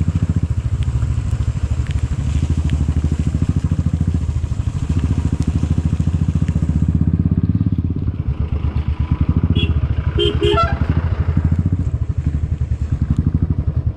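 Motorcycle engine running steadily under way, a rapid even pulsing of the exhaust, with a hiss over it that stops about seven seconds in.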